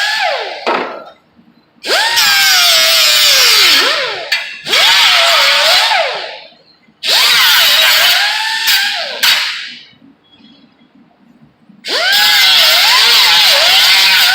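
Hand-held power grinding or cut-off tool worked against sheet metal in repeated short bursts, its motor whine dipping in pitch as it bites and rising again as it unloads.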